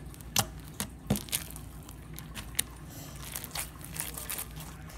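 Blue floam slime squeezed and pulled apart by hand, giving scattered sharp sticky clicks and crackles, several close together in the first second and a half and another a little past halfway.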